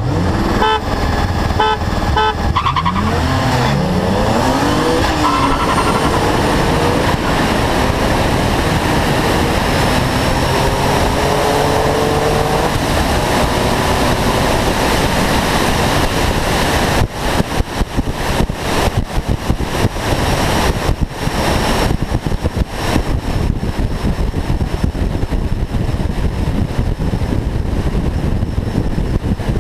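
A car engine revving hard under acceleration, its pitch rising and falling as it pulls through the gears, over loud wind and road noise. About halfway through, the sound turns choppy and broken up.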